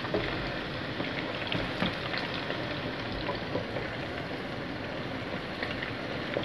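Chicken pieces in a cornflour, rice-flour and egg batter deep-frying in hot oil: a steady bubbling sizzle with many small scattered pops.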